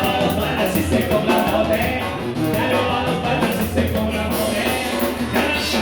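Upbeat Latin dance music with a steady drum beat, bass and singing.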